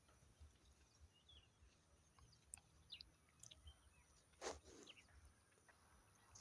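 Near silence, with a few faint, scattered bird chirps and a couple of soft knocks.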